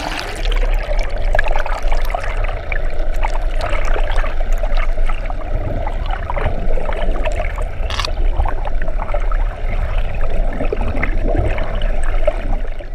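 Underwater sound picked up by a submerged camera: a steady muffled rush and gurgle of seawater with a constant low hum, scattered small clicks, and one sharp click about eight seconds in.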